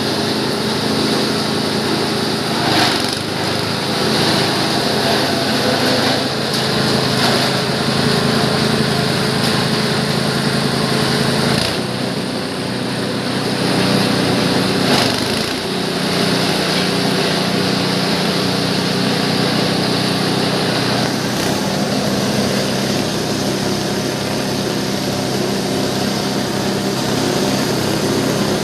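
G-20 multifunction chopper and grinder running continuously with a steady mechanical drone. Its pitch wavers and shifts about twelve to sixteen seconds in, then runs steady again.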